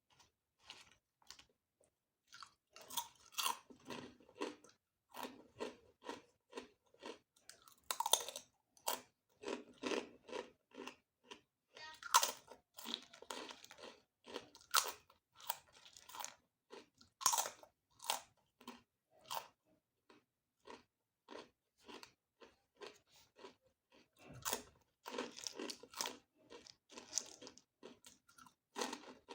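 Close-miked crunching and chewing of crisp food, a dense, irregular run of crackly bites and chews, quieter for a few seconds past the middle.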